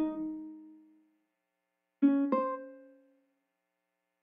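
Outro music of slow, sparse keyboard notes, each struck and left to ring out. A note is fading at the start, a pair of notes comes about two seconds in, and there are short silences between them.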